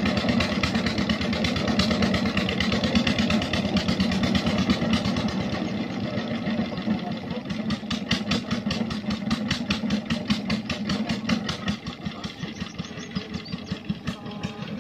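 Stationary engine running steadily with a rapid, even beat, a little quieter in the second half.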